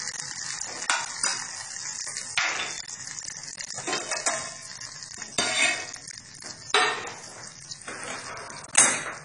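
Stainless-steel cookware clinking and knocking: about five sharp metallic clinks, the loudest near the end as the lid comes off the steamer pot.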